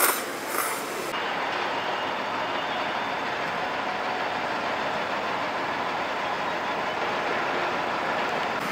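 A man slurping noodles in short loud pulls for about a second. Then a steady, even rumble of city road traffic.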